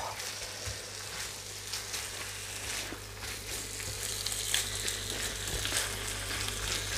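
Chicken pieces frying in a spiced tomato masala on a hot iron tawa: a steady sizzle with fine crackling.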